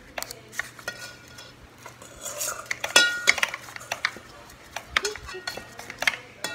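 Metal spoons clinking, tapping and scraping against a foil baking tray and paper cupcake liners while crushed Oreo crumbs are spooned in for the crust, in scattered sharp taps, the loudest about three seconds in.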